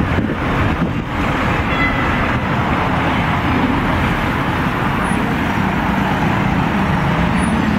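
Steady city street traffic noise: car engines running and tyres on the road around a busy intersection.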